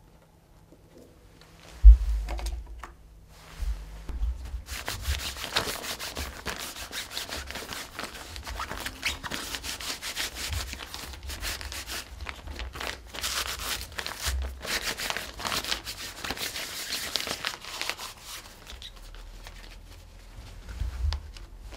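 A disinfectant wipe rubbed back and forth over a fabric blood pressure cuff, a continuous scratchy rubbing and crinkling as the cuff is cleaned. A low bump about two seconds in, as the cuff is handled, is the loudest moment.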